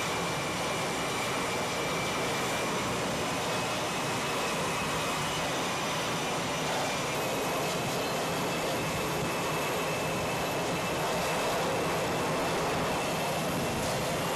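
Jet engines running on an aircraft carrier's flight deck: a steady rushing noise with a faint high whine above it.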